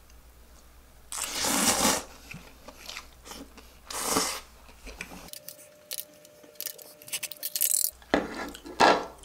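Somen noodles being slurped in a few loud noisy draws, the first about a second in, with chewing and small wet mouth clicks between them.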